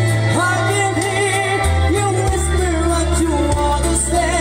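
A solo voice singing a slow ballad with held, wavering notes over an instrumental backing with sustained bass notes.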